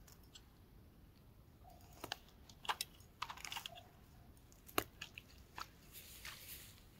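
Faint, scattered clicks and crackles from handling fishing tackle: an angler working his line and lure by hand, freeing them after a snag.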